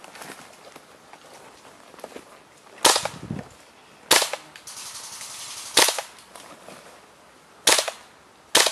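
Airsoft guns firing single shots: five sharp cracks, spaced irregularly a second or two apart.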